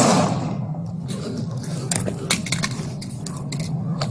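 A loud burst at the very start, then a run of sharp metallic clicks and clinks in quick succession over a low steady hum.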